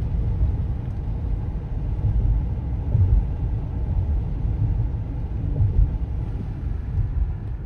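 Car driving along a road: a steady low rumble of engine and tyre noise that swells and dips unevenly.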